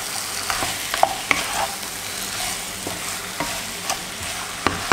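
Marinated chicken pieces sizzling as they fry in onion-tomato masala in a non-stick pan, stirred with a wooden spatula that scrapes and knocks against the pan now and then.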